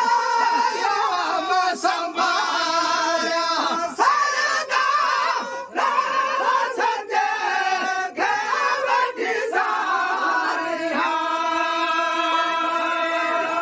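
Men singing a Sindhi molood, a devotional chant in praise of the Prophet, with no instruments. A lead voice is joined by the others, and the group holds long drawn-out notes near the end.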